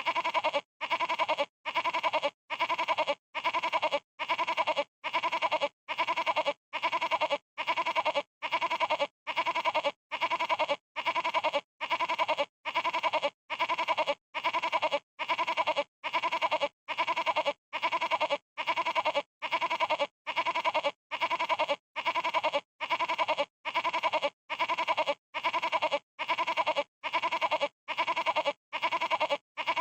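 Goat bleating a stuttering, quavering baa, the same short call repeated about once a second with silent gaps between.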